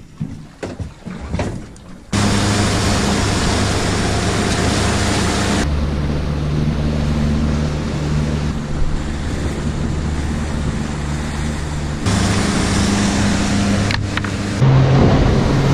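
Honda outboard motor running at speed as the alloy boat travels, with water rushing past the hull and wind noise. It comes in loud about two seconds in, and its pitch shifts abruptly several times.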